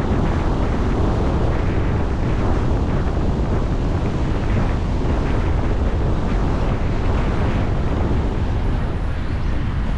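Steady wind rumble on the microphone together with road noise from a car driving along city streets.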